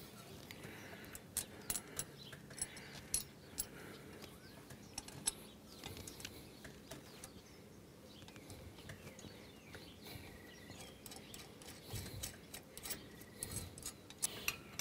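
Scattered small metal clicks and taps as a nut and washer are worked by hand onto the U-bolt of a steel quick hitch on a tractor's lift arm, over a quiet background with a few faint bird chirps.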